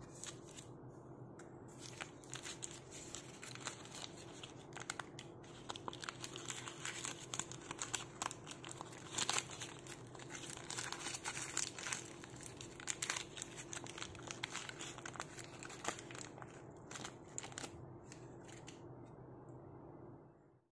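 Grilled parchment-paper wrapper being peeled open by hand from a fish cake: irregular crinkling and crackling, busiest in the middle and thinning out near the end, over a faint steady hum.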